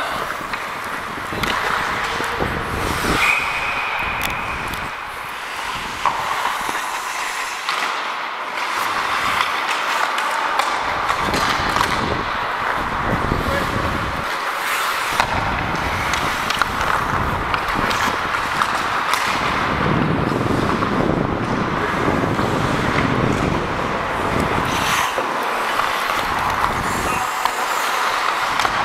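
Ice hockey play heard from a referee's helmet camera: a steady scraping rush of skates on the ice, with frequent knocks and clicks of sticks and puck.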